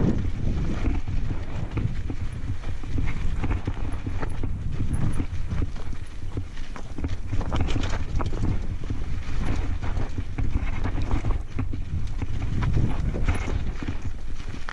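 Mountain bike descending fast over loose volcanic rock and gravel: tyres crunching over stones and the bike rattling with a constant run of small irregular knocks, over a steady low rumble of wind on the microphone.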